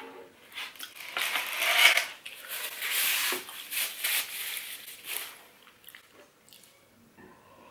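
Polystyrene foam clamshell box being closed and a paper napkin crumpled in the hands: a crackling rustle lasting about four seconds, loudest about two seconds in.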